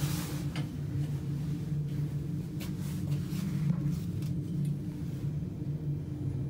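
Steady low hum and rumble of an elevator car running, with a few light ticks.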